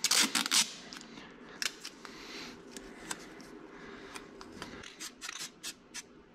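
Painter's tape being pulled off the roll with a short ripping noise at the very start, then a scattering of light clicks as it is handled and laid on.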